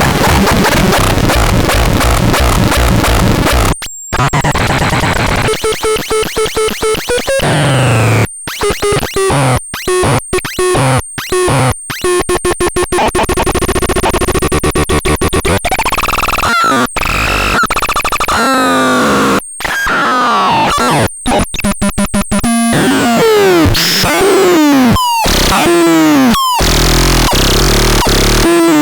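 ASMAR C1002TN electronic sound generator playing synthesized effects: a harsh noisy buzz, then rapidly chopped pulsing tones broken by sudden cut-outs, and later a run of falling pitch swoops, several in quick succession near the end.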